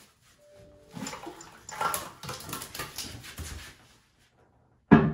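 An old porcelain toilet being worked loose and lifted off its floor flange: a couple of seconds of scraping, grinding and knocking as the base breaks free and drags on the tile floor. A sudden louder sound comes near the end.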